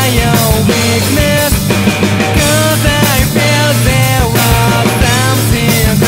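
Studio recording of a punk rock band playing: distorted electric guitars, bass and drum kit at a steady beat, with a melodic line that slides up and down in pitch.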